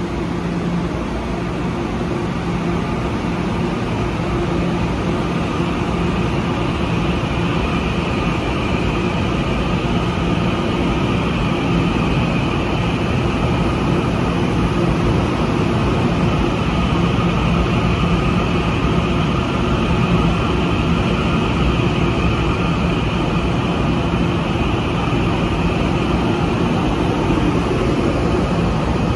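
TEMU2000 Puyuma electric multiple unit pulling out of the station, a steady hum and wheel-on-rail running noise with a high whine that comes in after a few seconds. It grows gradually louder as the train gathers speed.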